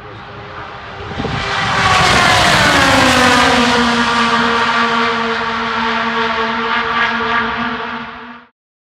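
IndyCars' 2.2-litre twin-turbo V6 engines at full speed going past: the engine note swells, drops in pitch as the cars pass, then holds a steady drone as they pull away, cut off abruptly near the end.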